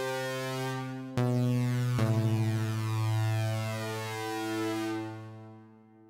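Steinberg Simple software synthesizer playing a lead preset: sustained bright synth notes that change about a second in and again at two seconds, then lose their brightness and die away near the end.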